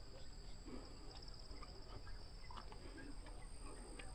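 Faint, steady high-pitched insect chorus: a continuous shrill trilling of evening insects, with a few light clicks beneath.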